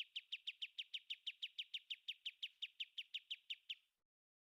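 Kapas tembak bird calling: a rapid, perfectly even series of short high notes, each dropping in pitch, a little over five a second. The series stops shortly before the end.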